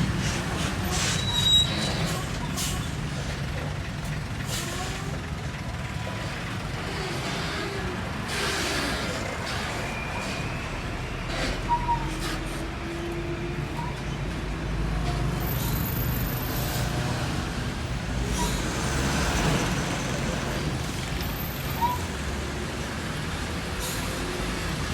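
Roadside traffic of heavy diesel trucks running and passing, with short hisses of air brakes. Two brief high beeps sound about ten seconds apart.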